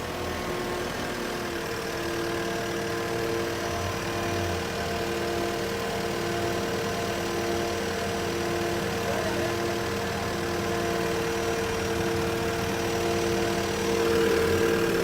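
Engine of a heavy lifting machine running steadily while it lifts a light, stripped car body. Over the engine a steady whine holds, with a second tone that pulses on and off about once a second.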